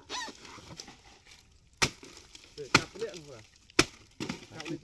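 Rotted palm-trunk fibre being torn and snapped apart by hand, with three sharp cracks, about a second apart, over a low rustling.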